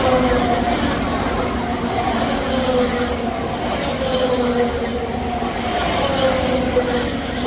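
IndyCars passing at speed one after another during practice, each engine note dropping in pitch as the car goes by, about every two seconds.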